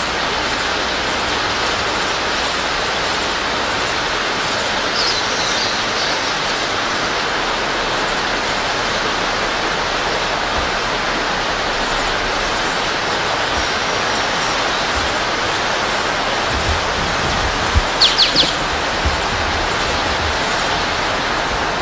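Steady rushing of river water, with brief bird chirps about five seconds in and again near the end.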